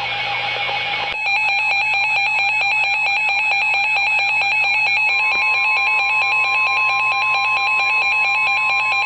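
NOAA weather radio sounding an emergency alert for a severe thunderstorm warning. A short screech of digital data noise gives way about a second in to a loud, rapidly pulsing electronic alarm. A steady warning tone joins it about five seconds in.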